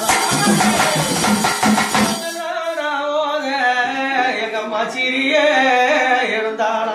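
A man singing a Tamil amman azhaippu, a folk invocation song to the goddess, in long wavering notes. Pambai drum beats accompany him for the first two seconds, then stop while the voice carries on.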